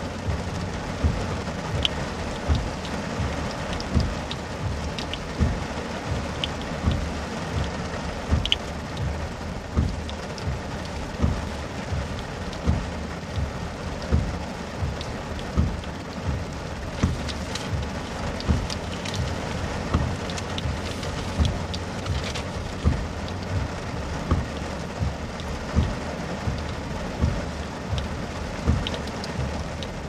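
Heavy rain drumming on a car's roof and windshield, heard from inside the car: a steady hiss with frequent, irregular heavy drops thudding about once a second.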